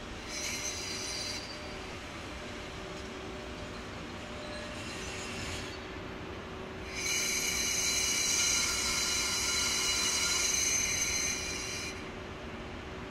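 Train brakes squealing as the EF81 electric locomotive-hauled sleeper train slows to a stop: a high-pitched squeal in three spells, short at first, then faint, then loudest for about five seconds from about seven seconds in, over a steady low hum.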